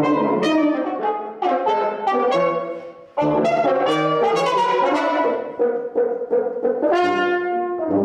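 Brass quintet of two trumpets, French horn, trombone and tuba playing a lively passage of short, detached chords. It drops out briefly just before three seconds in and comes back fuller, with some held notes.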